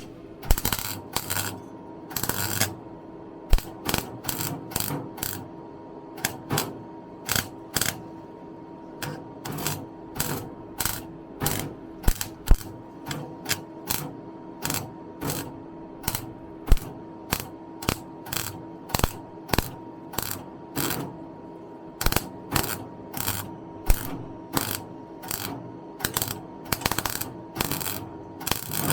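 Welder laying a quick string of short tack welds on rusty car body steel, each tack a brief crackling burst, roughly one or two a second, over a steady hum. The tacks build a lip around a rust hole so that it can later be seam welded.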